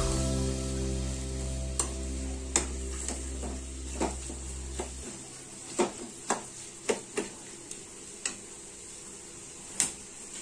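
Sliced onions sizzling in hot oil in a metal kadai, stirred with a metal slotted spatula that clicks and scrapes against the pan at irregular moments, roughly once a second. Low background music plays under the frying and stops about halfway through.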